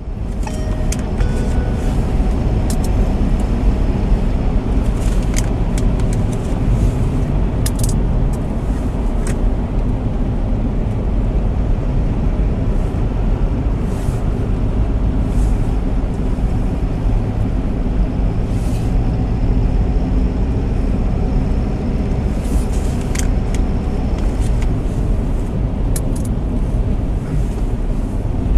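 Steady low rumble of a car's engine and tyres on a snow-packed road at about 70 km/h, heard from inside the cabin through a dashcam, with a few faint light ticks scattered through it.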